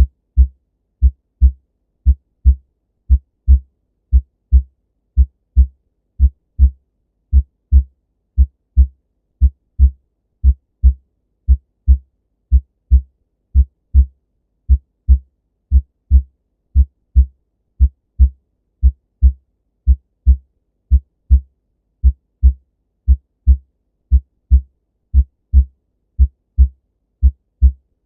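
Normal human heart sounds: a steady lub-dub, each beat a pair of short, low thumps (the first and second heart sounds), repeating about once a second with nothing heard between beats.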